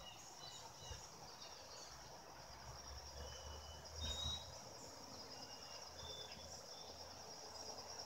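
Outdoor ambience of insects, likely crickets, trilling steadily at a high pitch, with scattered short bird chirps and whistles over it. A low rumble on the microphone briefly rises about four seconds in.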